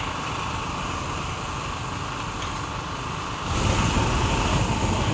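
Street ambience with motor vehicle engine noise running steadily. About three and a half seconds in, the sound gets louder and heavier in the low end.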